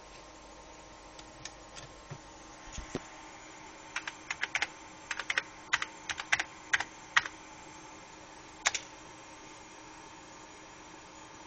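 Keystrokes on a computer keyboard: a few scattered clicks, then a quick run of about a dozen in the middle and one more near the end. Underneath is the steady hum of the running computer's fans.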